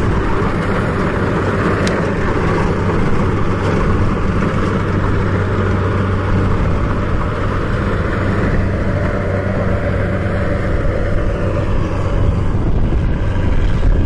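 Kubota DC70 combine harvester's diesel engine and threshing machinery running steadily, an even low drone.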